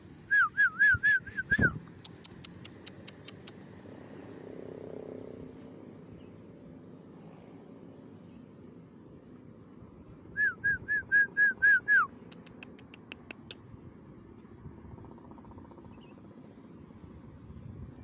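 A whistled bird call of about six quick, identical notes, each dropping at its end, given twice about ten seconds apart, each run followed by a string of sharp clicks.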